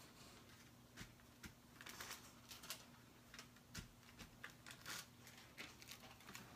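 Faint, irregular rustles and light taps of paper being handled, with a low steady electrical hum underneath.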